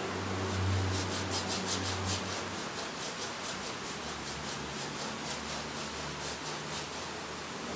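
Quick, even rubbing strokes over a dried oil-painted canvas, about five a second, as a thin coat of oil is rubbed into the paint surface (oiling out). The strokes grow fainter toward the end.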